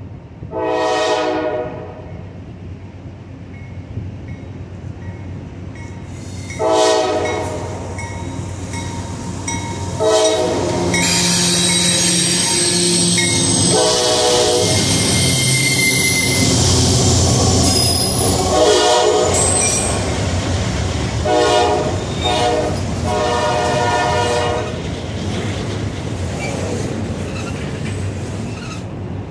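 CSX freight train with diesel locomotives approaching and passing close by, sounding its horn in about seven blasts, the first short and far off, the rest louder and closer. The locomotives pass loudly with a high squeal from the wheels, then a string of autorack cars rolls steadily past.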